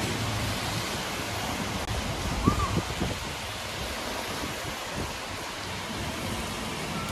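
Steady hiss of rain on a car's windshield and roof, heard from inside the car. A short, high chirp comes about two and a half seconds in.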